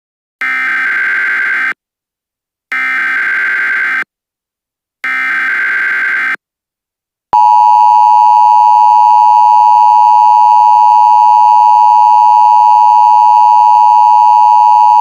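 Emergency Alert System broadcast signal: three short bursts of SAME header data tones, about a second apart. About seven seconds in, the loud, steady two-tone EAS attention signal starts and holds.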